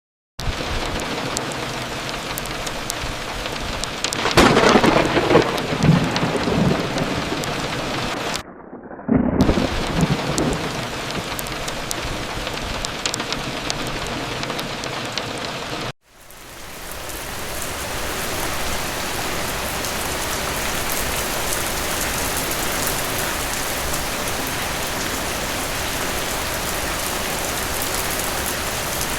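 Steady rain falling, with thunder rumbling about four seconds in and again about nine seconds in. After a brief dropout about sixteen seconds in, only steady rain.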